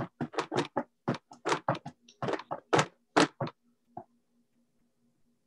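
A quick, irregular run of sharp clicks and taps, about fifteen in three and a half seconds, then one softer tap about four seconds in. A faint steady hum runs underneath.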